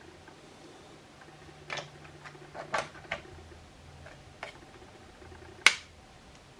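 Scattered light clicks and taps from handling a compact camera and its USB charging cable, about half a dozen in quick succession with the sharpest one near the end, over a faint steady hum.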